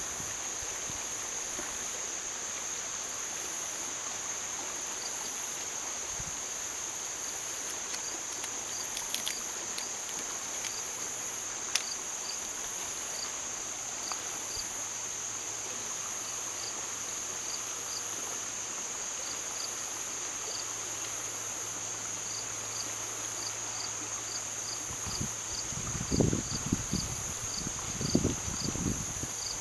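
Steady high-pitched insect trilling, crickets, over the even rush of a flowing stream, with a faint short chirp repeating several times a second from about five seconds in. Near the end a run of low, irregular thumps comes and goes.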